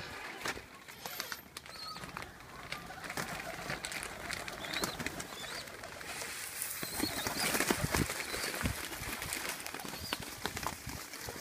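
Wild birds calling, short chirps now and then, over a run of clicks, knocks and rustling that grows loudest past the middle.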